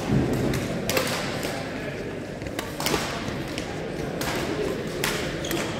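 Badminton rackets striking shuttlecocks on the surrounding courts: sharp, irregular hits a second or so apart, in a large gymnasium, over the murmur of voices.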